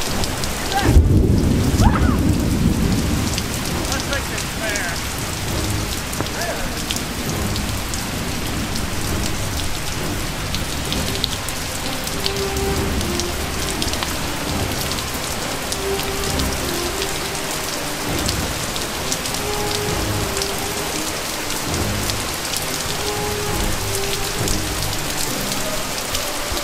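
Steady rain falling, with a low rumble of thunder about a second in.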